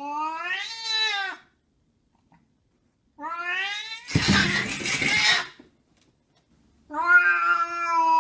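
Domestic cats caterwauling: three long drawn-out yowls. The first rises in pitch, the second turns into a harsh, noisy stretch partway through, and the last is held long and level.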